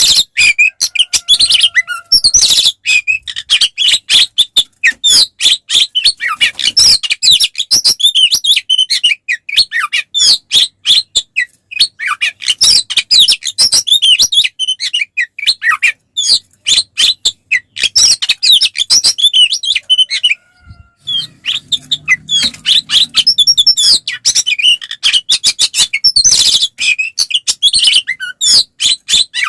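Oriental magpie-robin (kacer) singing a fast, unbroken run of high chirps and whistles in its loud fighting song, with a short pause about two-thirds of the way through.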